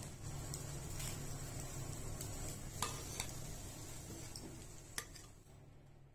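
Gas stove burner running steadily under a wire grill rack, with a few sharp metal clinks as roasted chicken gizzards are lifted off the rack into a steel bowl. The sound fades out near the end.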